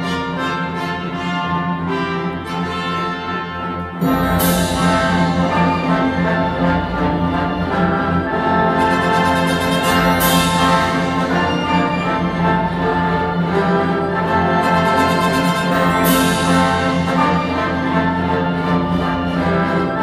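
Orchestral classical music played from CD through a pair of Dali Helicon 400 MK2 floor-standing speakers, heard in the room. About four seconds in, the orchestra jumps suddenly from a moderate passage to a loud full passage, with bright crash-like accents three times, about six seconds apart.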